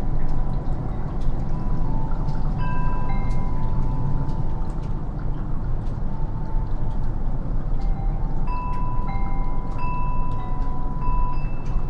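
Wind chimes ringing, several sustained metal tones sounding and fading at irregular moments, over a steady low rumble. Scattered sharp drips of melting snow tick through it.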